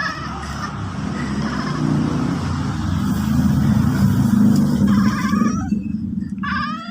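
A motor vehicle engine running close by, rising to its loudest a few seconds in and fading away near the end, like a vehicle driving past.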